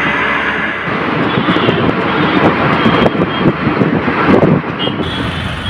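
Riding inside an auto-rickshaw in city traffic: the engine is running, with a steady rumble of road and wind noise. Two short high beeps come in the second half.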